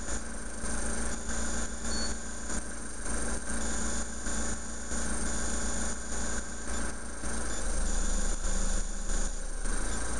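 Iseki TA375F tractor's diesel engine idling steadily.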